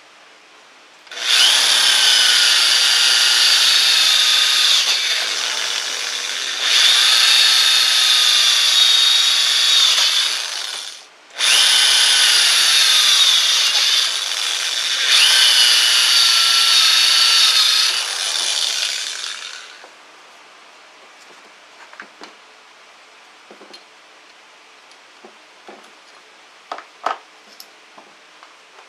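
J.C.K. Kawasaki 2010NR 500 W electric drill running and boring into a wooden plank, in two runs of about ten and eight seconds with a brief stop between; the motor's whine sags in pitch at times as the bit bites into the wood. A few light knocks follow near the end as the drill and plank are handled.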